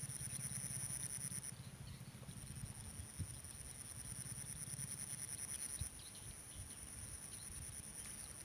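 Insects trilling in a steady, high-pitched outdoor chorus.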